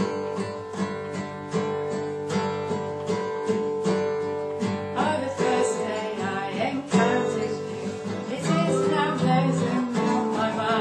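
Acoustic guitar strummed in a steady rhythm of chords, with singing coming in about halfway through.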